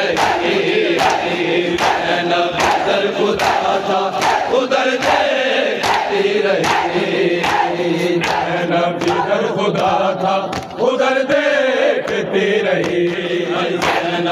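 Mourners performing matam: bare hands slapping on bare chests in a steady beat, about one and a half strokes a second, under a noha chanted by many men's voices.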